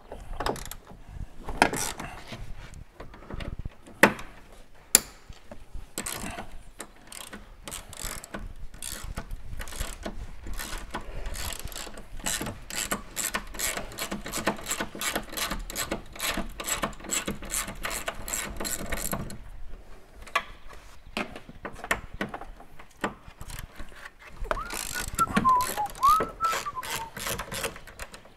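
Hand ratchet spanner clicking in quick, even strokes as the van door's hinge bolts are undone, with a few sharp knocks in the first few seconds.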